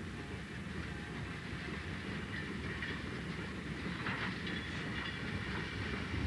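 Steam locomotive working slowly in a rail yard, a steady rumbling clatter with a short hiss of steam about four seconds in.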